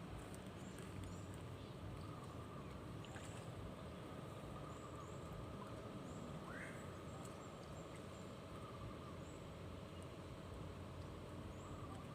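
Faint outdoor ambience with short, high bird chirps repeating every second or so, and one lower rising call about six and a half seconds in.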